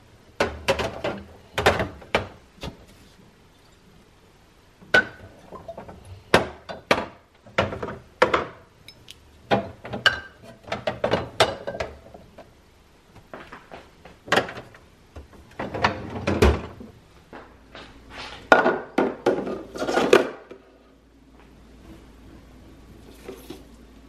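Glass bottles being set down and shifted in a clear plastic refrigerator drawer: a run of knocks, thunks and glassy clinks that stops about three-quarters of the way through, leaving a faint low steady hum.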